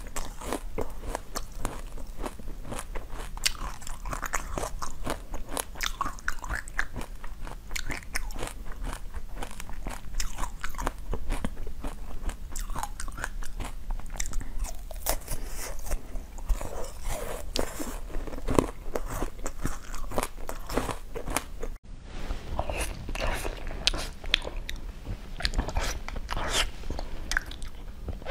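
Close-miked eating: crisp crunching bites and chewing of a frozen treat, many sharp crunches in quick succession. There is a brief break about three-quarters of the way through, then the chewing goes on.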